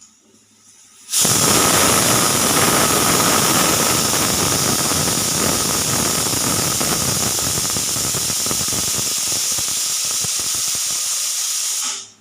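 Pressure cooker whistle: about a second in, the weight valve lifts and steam jets out in a sudden loud, steady hiss with a faint whistling tone, held for about eleven seconds before it cuts off sharply. The whistle is the sign that the cooker has reached full pressure and is venting steam.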